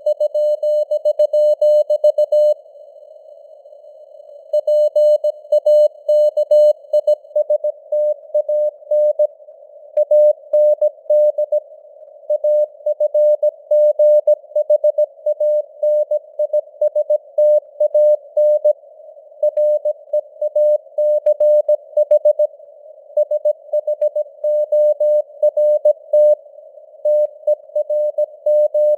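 Morse code (CW) sent at 17 words per minute as a single mid-pitched tone keyed on and off in dots and dashes, over a narrow band of hiss from simulated radio noise. It pauses briefly between words, with a longer gap a few seconds in.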